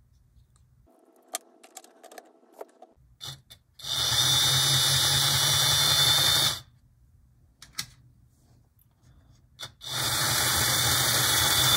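A small high-speed electric motor is switched on twice, running steadily for about three seconds and then about two. A few faint clicks come before the first run.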